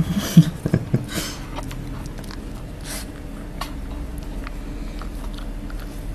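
Close handling noise around a cocker spaniel puppy being petted: a few thumps and short rustles in the first second or so, then faint small clicks and rustles as the puppy mouths a hand.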